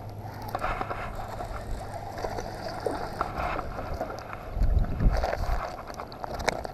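A hooked largemouth bass splashing at the surface as it is brought alongside and lipped by hand, with scattered clicks over a low steady hum. A brief, loud low rumble comes about two-thirds of the way in, as the fish is grabbed and lifted.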